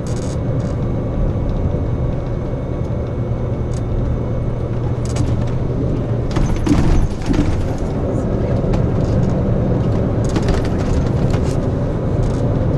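Tour coach running along the road, heard from inside the cabin: a steady low engine and road drone, with a few brief knocks or rattles about five, seven and ten seconds in.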